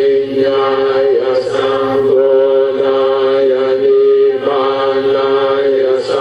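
Buddhist chanting: voices intoning on a near-steady pitch, with short breaks between phrases.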